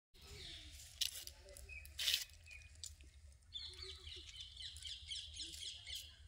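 Birds chirping in quick, repeated high notes, thickest from about halfway through, with two sharp clicks about one and two seconds in.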